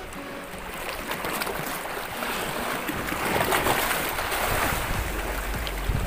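Small waves washing and splashing around shoreline rocks, the rush of water swelling to its loudest about three and a half seconds in. A low wind rumble on the microphone joins near the end.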